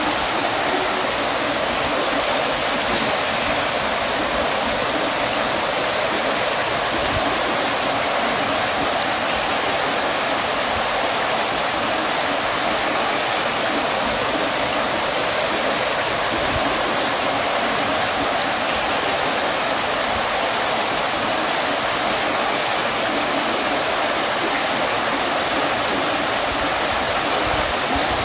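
Water fountain splashing and falling steadily into its basin, an even, unbroken rush of water. A single short high-pitched blip sounds about two and a half seconds in.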